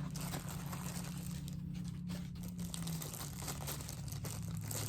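Plastic packaging crinkling and rustling as it is handled, in many small irregular crackles over a low steady hum.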